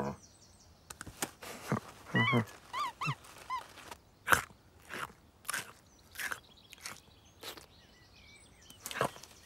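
Cartoon cat sound effects: a falling cry at the start and a few short pitched mews with quick chirping sounds about two seconds in. Then come a string of short, separate noisy sounds about every half second to a second.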